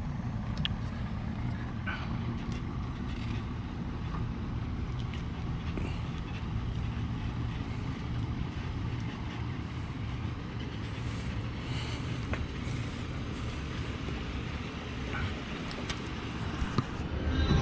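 Pickup truck engine running at low speed while towing a boat trailer, a steady low hum with a few faint clicks.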